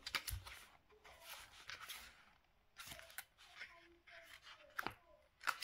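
Pages of a photo book being leafed through: soft, irregular paper rustling with a few sharp clicks as pages turn.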